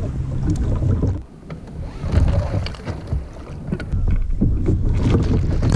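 Wind rumbling on the microphone over water splashing around a plastic sit-on-top kayak. There is a short lull about a second in, then more splashes.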